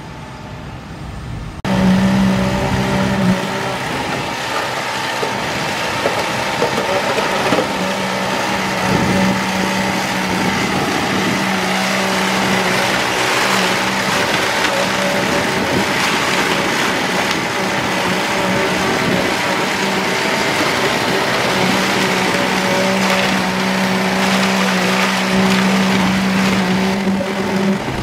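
Concrete boom pump truck's engine running hard while pumping concrete into the manure tank's wall forms. It cuts in suddenly about two seconds in and keeps a steady drone, with a low note that drops out and returns several times.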